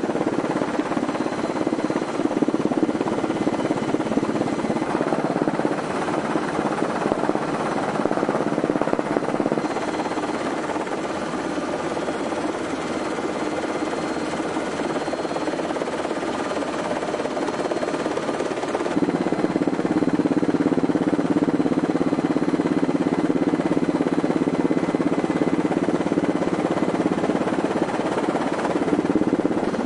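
Steady drone of an aircraft's engines heard from inside the cabin, with faint steady tones over a rushing noise. About 19 seconds in the drone shifts to a fuller, lower tone.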